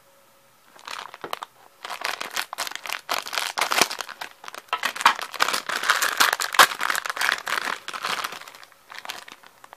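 Shiny plastic blind bag crinkling in the hands as it is cut open with scissors and its contents pulled out. The dense run of crackles starts about a second in and eases off near the end.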